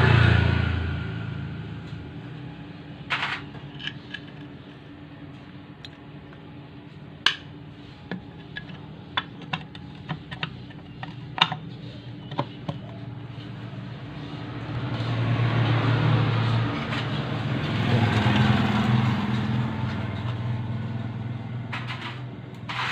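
Scattered sharp metal clicks and taps as the starter-gear cover is fitted by hand onto a Yamaha NMAX scooter's engine case. Under them is a steady engine hum that grows louder about fifteen seconds in and then fades.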